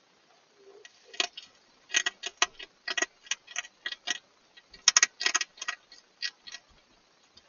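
Hedgehog eating dry food close to the microphone: sharp, irregular crunching clicks, a few a second, starting about a second in, with a quick cluster about five seconds in.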